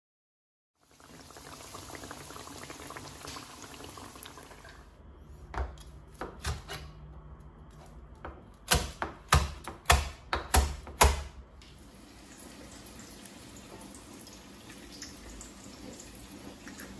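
Chef's knife chopping fried pork belly on a plastic cutting board: a few scattered knocks, then about ten quick, sharp strikes in under three seconds. Stretches of steady hiss come before and after the chopping.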